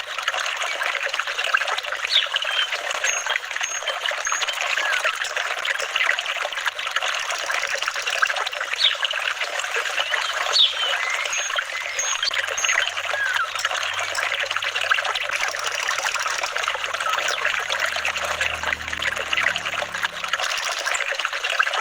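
Flowing water trickling and babbling steadily, with many small bubbling plinks.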